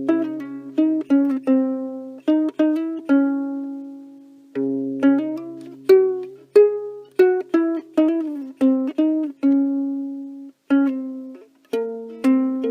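Instrumental ukulele music: plucked ukulele notes played in quick runs of several a second, each ringing out and fading, over a low held note that drops out for about a second near the middle.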